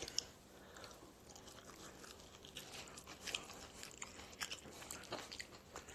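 Faint, irregular chewing and crunching of a person eating sauced fried chicken wings, with small clicks and smacks.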